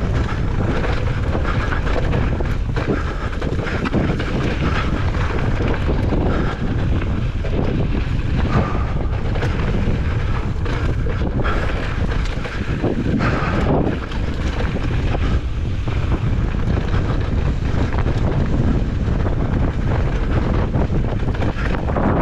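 Strong wind buffeting the microphone, mixed with a mountain bike running down a dirt trail: tyre roar and scattered knocks and rattles from the bike.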